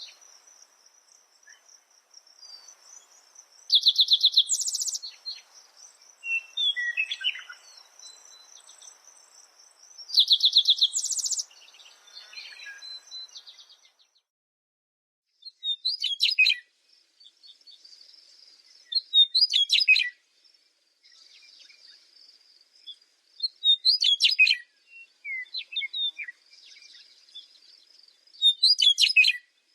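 Parrots calling: two loud, harsh squawks in the first half over a steady high tone, then short, sharp calls about every four seconds.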